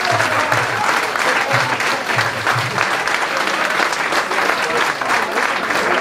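Crowd applauding steadily, with low thuds underneath that stop about three seconds in.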